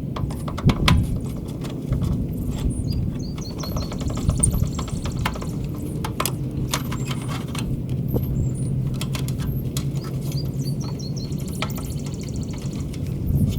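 Scattered clicks and knocks of hand tools and wire being worked at an electrical panel, over a steady low hum. Short bursts of bird chirps come twice.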